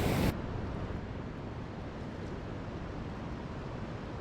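Steady wash of ocean surf and wind, which drops abruptly to a lower, even level a moment in.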